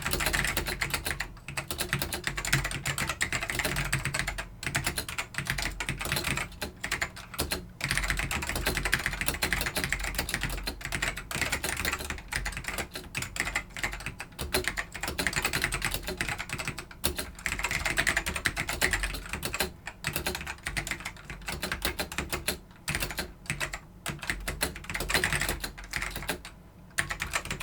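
Fast, continuous typing on a Dell AT102W mechanical keyboard with Alps black linear switches (nicknamed "Pine"): a dense stream of key clicks with a few brief pauses.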